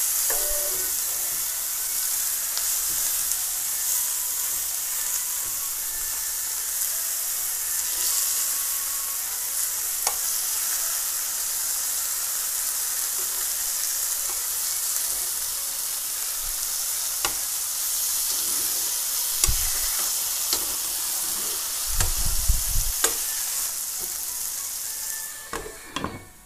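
Tomato halves sizzling in hot oil in a nonstick frying pan, with scattered clicks and a few low knocks as they are turned with tongs. Just before the end a glass lid goes on and the sizzling drops away.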